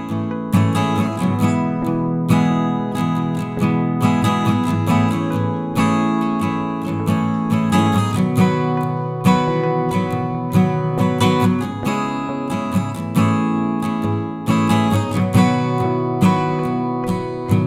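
Background music of a strummed acoustic guitar, with a steady rhythm of chord strokes.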